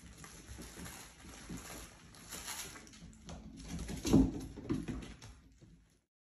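Mini goldendoodle puppies playing: irregular scuffling and small knocks of paws and bodies on a hard floor, with a louder burst about four seconds in. The sound fades out near the end.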